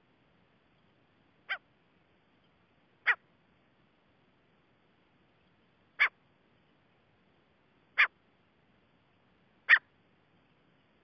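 Grey francolin (teetar) giving five short, sharp call notes, spaced irregularly about one and a half to three seconds apart, the last one the loudest.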